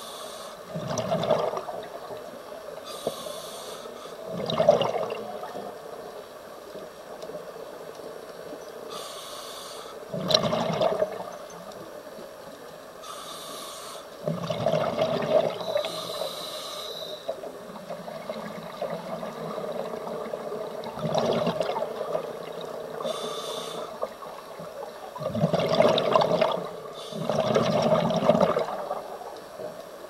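Scuba diver breathing through a regulator underwater: a short hiss on each inhale, then a louder bubbling rush of exhaled air, about one breath every five seconds.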